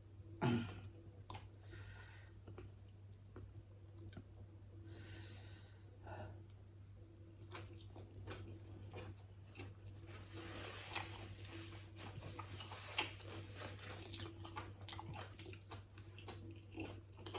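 A person chewing and eating mouthfuls of fish soup with rice close to the microphone, with a sharp sound about half a second in, a couple of short noisy breaths or sips, and many small clicks of eating, over a steady low hum.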